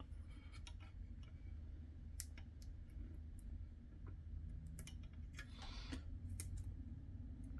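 Faint, scattered clicks and taps of small plastic model-kit parts being handled as a license plate is fitted to a model car, with a short rustle about six seconds in, over a low steady hum.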